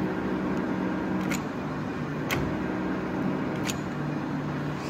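Daewoo-Ikegai tool room lathe running with a steady mechanical hum. Three sharp clicks come as the levers on the carriage apron are worked.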